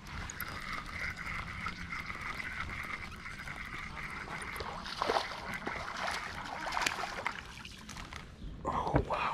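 Water splashing and sloshing at the surface as a small hooked fish is fought and swung from the creek, with sharp splashes about five seconds in and again near the end. A steady high tone runs through the first few seconds.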